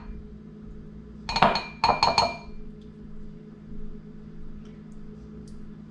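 A spoon clinks several times against a glass mixing bowl as mayonnaise is spooned in, with a short glassy ring after the strikes about a second and a half to two and a half seconds in.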